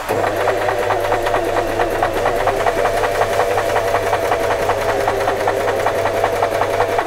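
Singer FM 2250 electric sewing machine running at steady speed, stitching the first side of a buttonhole with short, dense stitches: a motor hum with a regular ticking of the needle, starting and stopping abruptly.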